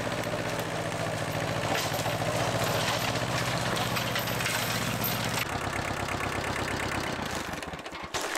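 Tractor engine running steadily while cutting grass; about five seconds in the engine note drops, and it fades away near the end.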